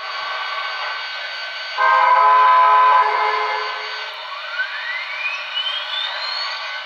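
The onboard DCC sound decoder of an HO-scale NYC 4-6-4 Hudson model steam locomotive, playing through its small speaker: a steady standing-engine hum, a loud steam whistle blast from about two to three seconds in, then a rising whine of the turbo-generator spinning up as the headlight comes on.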